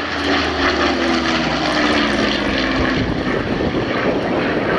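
Supermarine Spitfire Mk V flying past, its Rolls-Royce Merlin 45 V12 piston engine droning loudly and steadily. The pitch sinks slightly as it passes.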